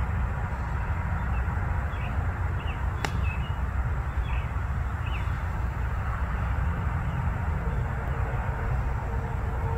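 Steady outdoor rumble, heavy in the low end like wind or distant traffic, with a few faint bird chirps in the first half and a single sharp click about three seconds in.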